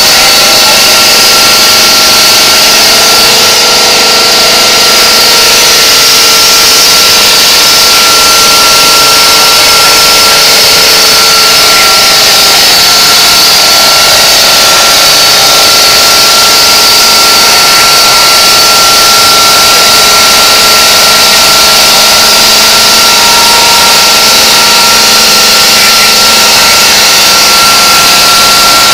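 Bridge saw's circular stone-cutting blade sawing through a granite slab: a loud, steady cutting noise with one high tone held throughout.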